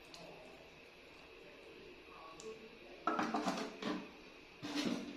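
Metal spoon scraping and clinking against a glass bowl in two short bursts, one about three seconds in and one near the end, after a near-quiet start.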